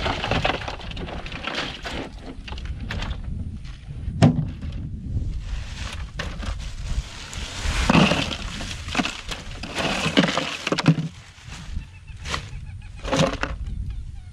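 Ice cubes poured from a plastic bag into a plastic cooler onto a load of fish, clattering and crackling in irregular bursts.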